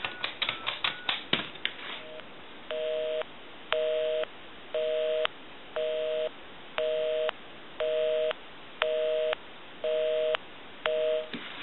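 Western Electric Princess telephone's touch-tone keypad being dialed: quick button presses, each with its dual-tone beep, for about the first second and a half. Then the line gives a busy signal: a low two-tone beep pulsing on and off about once a second, about ten times, heard from the off-hook handset.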